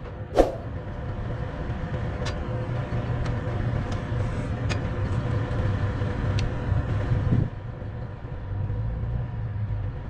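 An engine running steadily, with a sharp ringing metallic clank about half a second in and several light ticks after it. The engine noise drops off suddenly about seven and a half seconds in.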